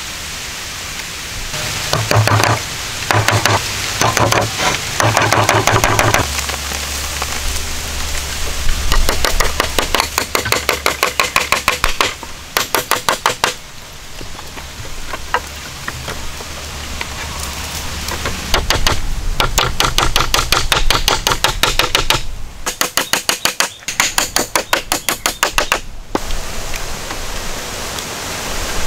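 Hand woodworking on sawn pine boards: several runs of rapid, even, short strokes or knocks on the wood, each starting and stopping abruptly.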